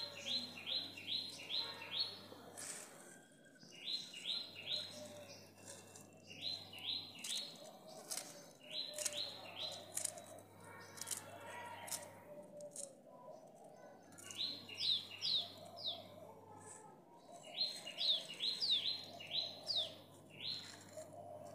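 A bird chirping in quick runs of short repeated notes, about five notes a second, in five bouts of two to three seconds with pauses between. Faint scattered clicks sit beneath it.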